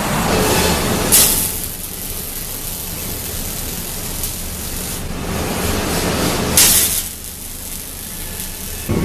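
Forge-shop machinery running with a steady low rumble, cut by two short, loud hisses of air about a second in and again about two-thirds through.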